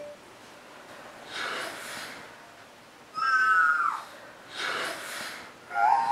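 A woman's nervous, breathy gasps, twice, with short high-pitched whimpers between them: one that falls in pitch near the middle and one that rises and holds near the end.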